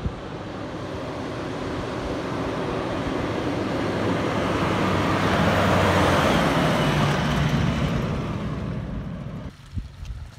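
Mitsubishi Pajero Sport SUV driving past on a dirt track, its engine and tyres on the loose ground growing louder as it approaches. It is loudest about six seconds in, then fades as it moves away, and the sound cuts off sharply near the end.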